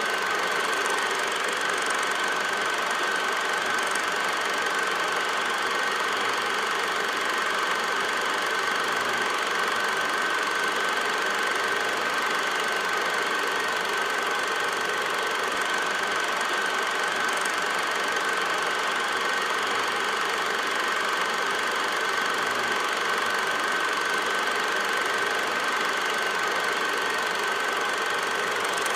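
8mm film projector running: a steady mechanical whir with a constant high whine over it, unchanging throughout.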